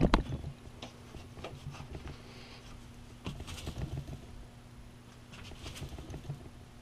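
Scattered knocks and light clicks of a sanding belt being fitted over a belt grinder's wheels by hand, with one louder knock right at the start. The grinder's motor is not running.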